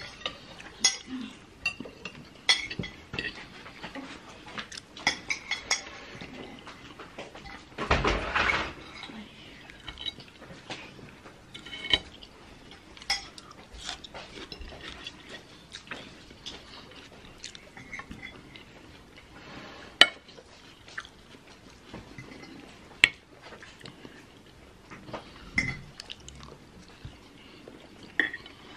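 Metal fork and knife clinking and scraping against a ceramic plate in scattered sharp ticks, with soft chewing in between. About eight seconds in comes a louder noisy stretch lasting under a second, and later two sharper, louder clinks.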